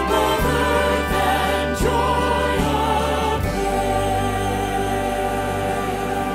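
Choir singing the last line of a gospel hymn over instrumental accompaniment, settling about three and a half seconds in onto a long held final chord.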